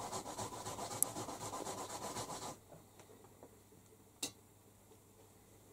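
A hand scratching and rubbing rapidly on a blanket and bedding, a rhythmic rasping that stops abruptly about halfway through. A single sharp click comes near the end.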